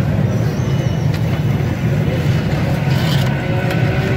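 Oil sizzling in a large wok as katlama pieces deep-fry, over a steady low rumble. A few sharp clicks stand out about a second in and again near the end.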